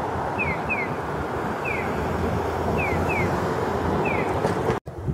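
A Japanese audible pedestrian signal plays its electronic 'piyo-piyo' chick-chirp tone for the green walk phase. The short falling chirps come as a pair, then a single chirp, repeating about every two and a half seconds over steady wind and traffic noise. The sound cuts off just before the end.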